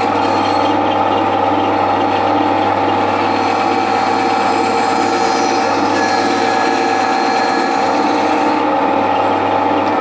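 Band saw running steadily while its blade cuts through a wooden blank.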